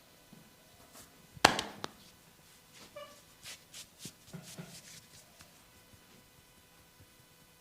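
Massage hands on skin: one loud, sharp smack about a second and a half in, followed by a couple of smaller ones, then a run of softer pats and taps.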